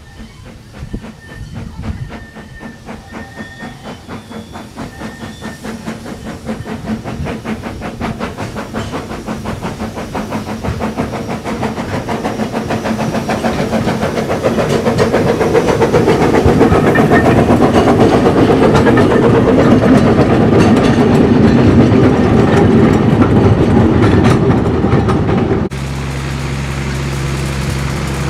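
Narrow-gauge steam locomotive hauling coaches, its exhaust beating in a quick, even rhythm that grows steadily louder as it approaches and passes close by. Near the end it cuts off abruptly to the steady low drone of a small diesel locomotive's engine.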